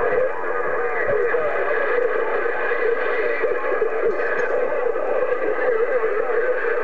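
CB radio receiver audio on the 27 MHz band: garbled, overlapping distant voices and steady whistling tones under a continuous layer of noise, none of it clear enough to make out words.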